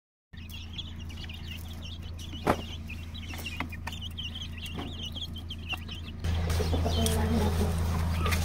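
A brood of chicks peeping in quick, high chirps over a steady low hum. About six seconds in, a louder low rumble comes in.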